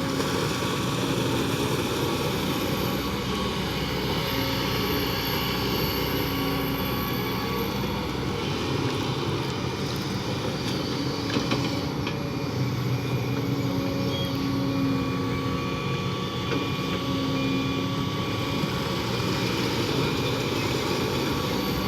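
Kobelco 220 excavator's diesel engine running steadily under working load, its hum shifting a little in pitch as it works. A couple of light knocks come about halfway through.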